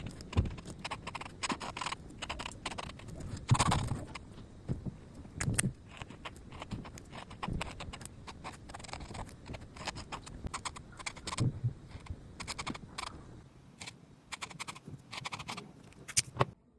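Drawing on paper: irregular pen or marker strokes scratching across the sheet, with small clicks and taps between them. The sound cuts off suddenly near the end.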